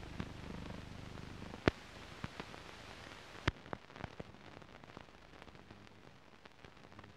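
Surface noise of an old newsreel film soundtrack: a steady hiss and crackle with scattered clicks and pops, the sharpest about a second and a half in. A low hum fades out before two seconds, and the upper hiss drops away about three and a half seconds in.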